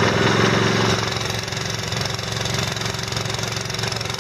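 Small gasoline engine running steadily, driving the dredge's high-pressure water pump that feeds the jet-propulsion hoses. It is a little louder for the first second, then settles lower.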